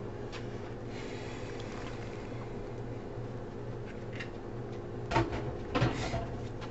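Cooked pasta shells tipped into a pan of thick cheese sauce, a soft sliding sound over a steady low hum, then two short clunks about five and six seconds in.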